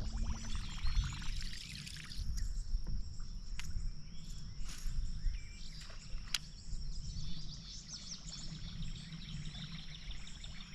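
Open-air ambience on the water: a steady low rumble of wind on the microphone and birds chirping. There is a rapid churning, splashy sound for about the first second, and a few sharp clicks in the middle.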